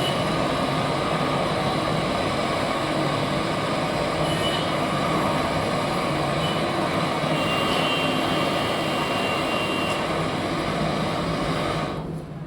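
Steady mechanical running noise that dies away near the end.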